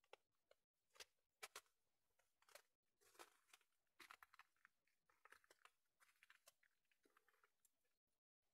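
Faint footsteps on the floor of a rock tunnel: irregular soft scuffs and clicks, a few a second.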